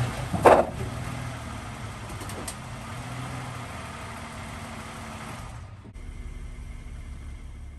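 Car engine idling as a steady low hum, with one loud, short clunk about half a second in.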